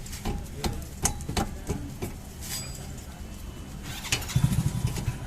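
Several sharp clicks and knocks, then about four seconds in a vehicle engine starts running with a low, uneven pulse.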